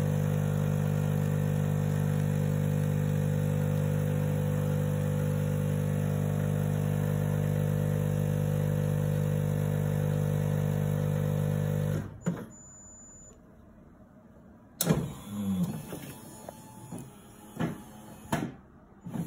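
A WMF 2000 S superautomatic coffee machine hums steadily while it dispenses an americano through its twin coffee spouts, then cuts off suddenly about two-thirds of the way through. After that come a few light knocks and clinks as the glass is lifted off the metal drip grate.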